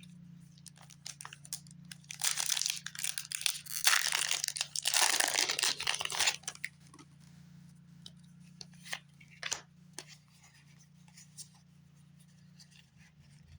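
Foil wrapper of a Pokémon booster pack being torn open and crinkled for about four seconds, starting about two seconds in, followed by faint clicks and rustles of the cards being handled.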